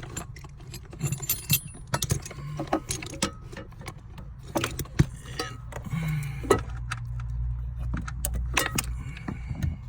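Assorted sharp clicks, knocks and metallic jingling from hands working with small metal parts under a car's dashboard, over a steady low hum.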